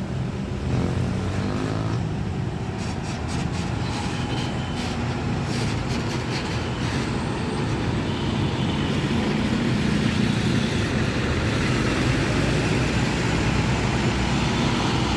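Busy road traffic with the low, steady run of a large diesel engine as a bus passes, growing a little louder in the second half.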